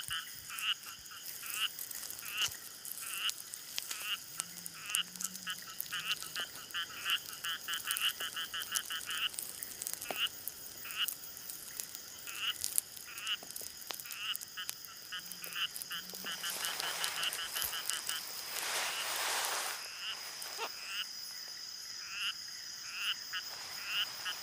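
Night chorus of frogs: short pulsed croaks repeated over and over, sometimes in quick rattling runs, over a steady high-pitched insect drone. A brief rustling hiss swells about two-thirds of the way through.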